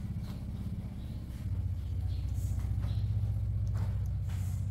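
A steady low motor rumble with a fast flutter, growing louder about a second and a half in.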